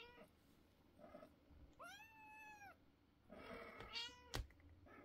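Kitten meowing repeatedly in high, thin calls: a short one, a faint one, then a long call that rises and falls, and another near the end. A sharp click comes shortly after the last long call.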